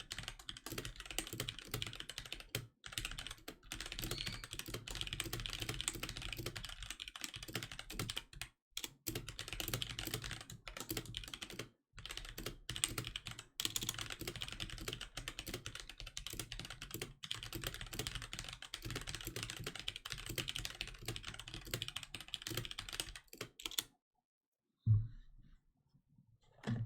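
Fast, continuous typing on a HyperX Alloy Origins Core mechanical keyboard with HyperX Aqua tactile switches: a steady stream of key clicks with a few brief pauses. The typing stops near the end, followed by a single loud knock.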